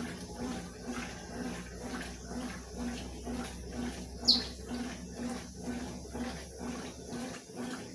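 Consul 12 kg washing machine agitating in its rinse cycle, swishing water and a sofa cover back and forth in an even rhythm of about two and a half strokes a second over a steady motor hum. A single short, high chirp about four seconds in is the loudest sound.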